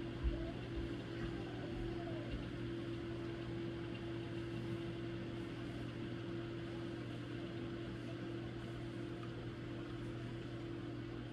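A steady mechanical hum with a constant low tone, like a running motor or appliance, with a single low thump just after the start.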